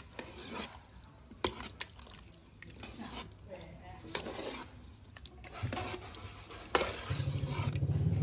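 A ladle stirring a large metal pot of simmering coconut-milk dessert with tuber pieces and pandan leaves: occasional knocks against the pot and sloshing of the thick liquid. Crickets chirr steadily throughout, and about seven seconds in a low pulsing hum starts.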